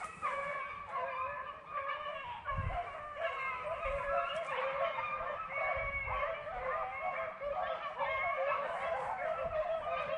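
Pack of beagles baying together, many voices overlapping without a break: the hounds in full cry running a rabbit's trail.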